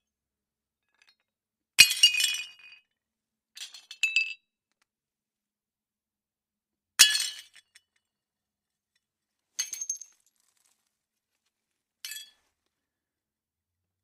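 Plates smashing hard: two loud crashes, about 2 and 7 seconds in, each a sharp impact followed by the clatter of breaking pieces. Shorter, lighter breaks with clinking shards come about 4 and 10 seconds in, and a brief faint one near the end.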